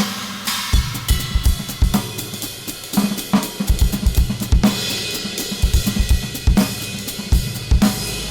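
Drum kit played freely: irregular kick and snare strikes under washing cymbals and hi-hat, with a low sustained bass tone underneath.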